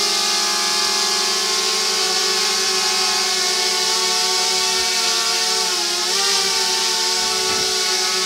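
DJI Mavic Mini quadcopter's propellers buzzing as it hovers, a steady high whine. The pitch dips briefly and comes back up about six seconds in.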